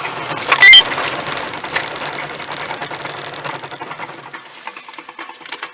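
Road noise heard from inside a moving car, broken about a second in by a short, very loud burst that cuts across everything, then crackling noise that slowly fades.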